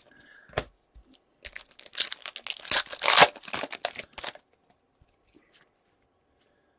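Foil wrapper of a hockey card pack being torn open and crinkled: a burst of ripping and crackling lasting about three seconds, starting about a second and a half in, after a couple of light taps.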